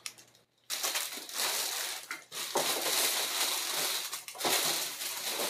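Clear plastic packaging wrap crinkling and rustling as it is handled. It starts just under a second in and goes on in long stretches with two short pauses.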